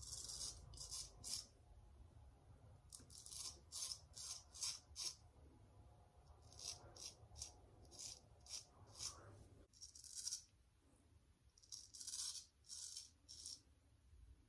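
Straight razor cutting lathered beard stubble: short strokes in quick runs of several at a time, with brief pauses between runs.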